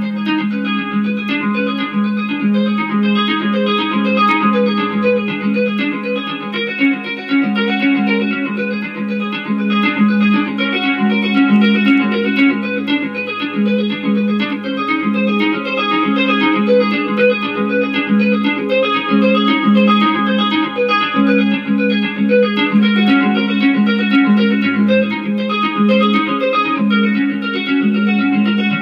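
Electric guitar played with two-handed tapping, amplified: a fast, repeating pattern of tapped notes over an evenly pulsing low note, with the upper notes shifting as the phrase moves on.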